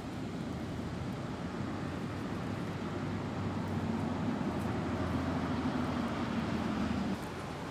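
A steady low engine hum over background noise. It grows louder past the middle and cuts off suddenly about seven seconds in.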